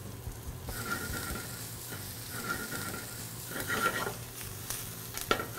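Blanched kale and shallots sizzling in olive oil in a hot frying pan, the sizzle picking up about a second in as the kale goes in and is stirred. A steady low hum runs underneath, with a few light knocks near the end.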